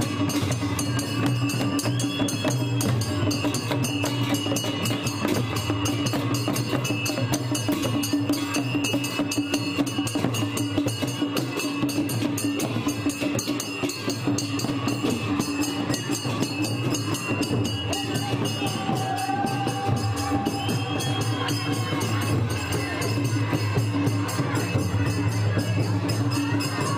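Music with drums and percussion playing steadily, without a break.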